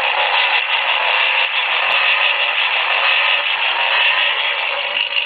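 Disney Cars Shake 'n Go Ramon toy car being shaken in the hand, its small built-in speaker playing a steady engine-revving sound effect with no bass, as the shaking winds up its motor.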